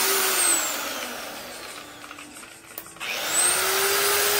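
Stanley electric angle polisher running free with no load, with a high motor whine. About half a second in it is switched off and its pitch and level fall as it coasts down. About 3 s in it is switched on again and spins back up to full speed.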